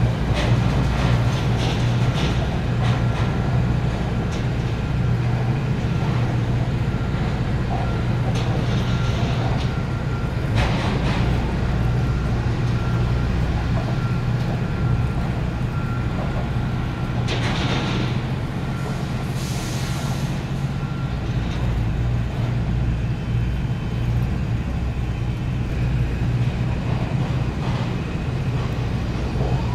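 A steady low engine drone, with a few short hisses partway through.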